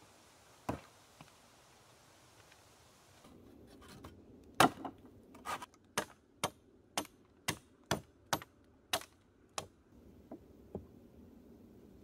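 One knock, then a run of about ten sharp wooden knocks at roughly two a second, fading to a couple of fainter ones near the end. The knocks come from a wooden stick jabbed down between the logs of a log wall.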